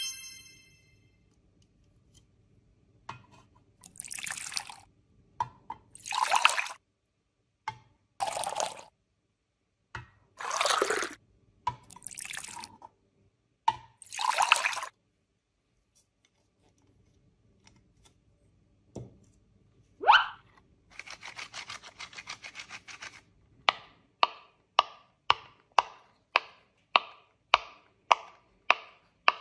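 Brief ringing tone at the start, then several short bursts of liquid splashing, each a second or less. Later a rising whoosh and a stretch of fizzing rattle give way to a run of sharp, evenly spaced clicks, about two a second.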